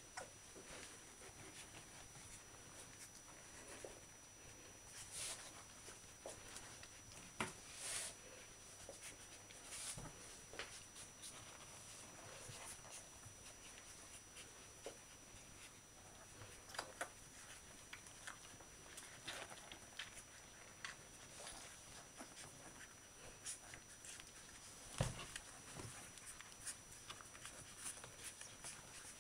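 Faint rustling and scratching of whippet puppies and their mother shifting about on cloth bedding, with scattered soft clicks and a few louder knocks and scrapes, the loudest about 25 seconds in.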